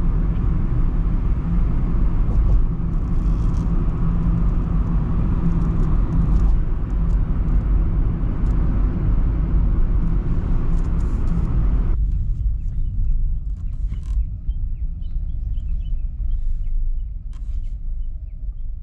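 Road noise inside a moving car's cabin: a steady low rumble of tyres and engine on a wet road. About twelve seconds in it cuts abruptly to a quieter low rumble with a faint steady hum, fading near the end.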